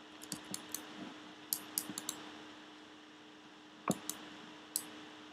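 Scattered clicks of a computer mouse and keyboard, about a dozen, some in quick clusters, over a faint steady hum.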